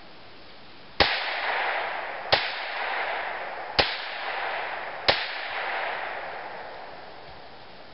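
Four shots from a Winchester lever-action rifle in .22 Magnum, about 1.3 seconds apart, each followed by a long echo that dies away over the next couple of seconds.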